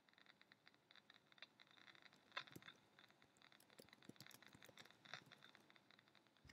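Near silence, broken by a few faint, short scratchy clicks.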